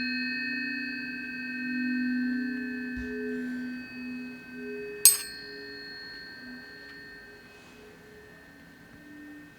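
Several tuning forks ringing together in steady, slowly fading tones, high and low. One fork is struck sharply about five seconds in and rings out brightly before fading.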